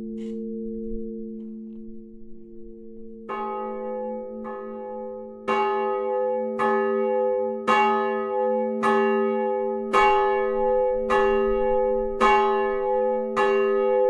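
Middle church bell of the tower, a 387 kg bronze bell cast by the Fischer Brothers of Trnava in 1939 and tuned to about G♯, being swung on its own. After a lingering low hum, its clapper strikes faintly a little over three seconds in, then about once a second with each stroke louder, the rings overlapping into a continuous peal.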